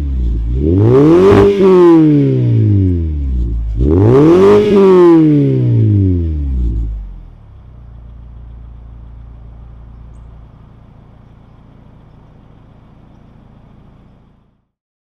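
Mazda 6's 2.5-litre Skyactiv four-cylinder, cold, breathing through a CorkSport axle-back exhaust with quad tips: it is revved hard twice, each rev climbing and falling back within about two seconds. It then settles to a much quieter steady idle.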